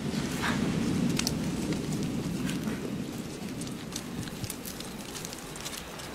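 Small wood fire crackling, with scattered sharp pops over a low steady rushing noise that slowly fades.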